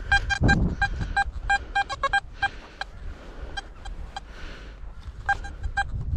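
Metal detector beeping with short, irregular tones over a target in the soil. There is a dull low thud about half a second in.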